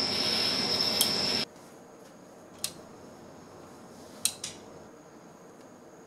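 Decora-style rocker light switch clicking: once about two and a half seconds in, then twice in quick succession about two seconds later. Before that, a loud steady hiss with a thin high tone cuts off abruptly about one and a half seconds in.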